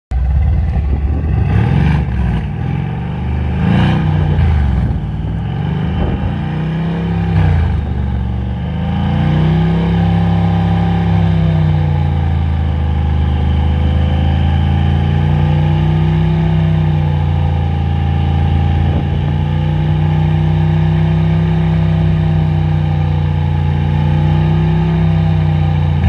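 Exhaust of a Stage 3 tuned Mercedes-AMG C63 S with a 4.0-litre twin-turbo V8, loud at the tailpipes. It is revved several times, rising and falling in the first several seconds, then held at a steady raised engine speed of about 3750 rpm in Sport+ mode, wavering slightly.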